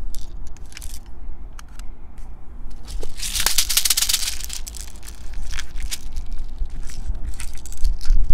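Plastic BB pellets poured from a squeeze bottle rattling into a Toystar Spy-R toy airsoft revolver. There is a dense pattering rush about three seconds in that lasts about a second, with scattered clicks of plastic being handled before and after it.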